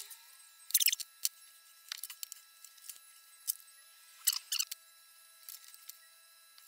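Small hand tools and loose metal hardware being handled on a work board: a scatter of light clicks, clinks and rustles, loudest about a second in and again just after four seconds.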